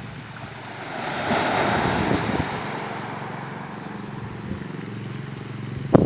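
A small wave breaking on a pebble beach and washing up the shingle: the surf noise swells about a second in, is loudest for about a second, then slowly fades as the water runs back.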